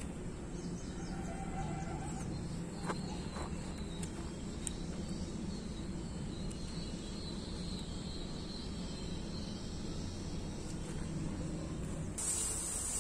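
Outdoor rural background noise with a faint steady insect buzz and a few brief bird chirps; a steady hiss starts suddenly near the end.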